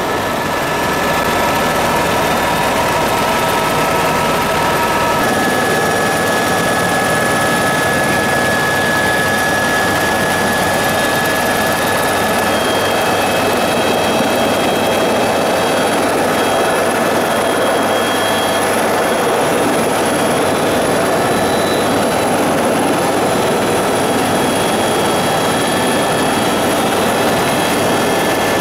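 Helicopter turbine and rotors running steadily, heard inside the cabin: a loud, even rush with a high whine over it, whose tones shift slightly about five seconds in.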